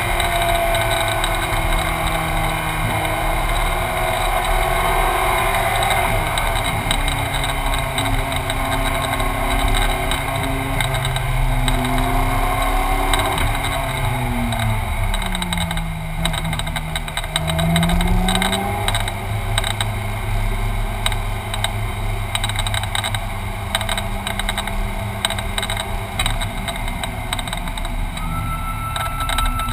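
Ferrari 458 Challenge's V8 engine heard from inside the cabin, running at low revs over a steady rumble and hiss. Its pitch sinks and then climbs again about halfway through as the car slows and picks up.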